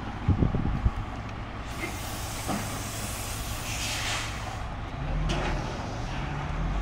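A tractor-trailer's air brakes let out a hiss lasting about three seconds, after a few dull thumps in the first second. Near the end, a low engine hum sets in.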